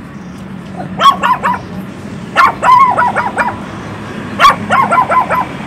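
A small puppy barking in three quick bursts of high-pitched yaps, several yaps to each burst, over a steady low background hum.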